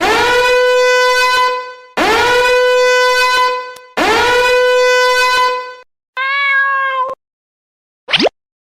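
Meme sound effect: a loud, buzzy horn-like tone held for about two seconds, sounded three times at the same pitch, each scooping up into the note. A shorter wavering note and a quick upward swoop follow near the end.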